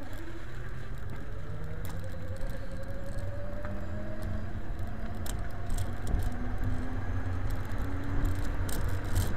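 Arcimoto FUV three-wheeled electric vehicle gathering speed: its electric drive whine rises slowly in pitch over a low road rumble, with scattered clicks and rattles.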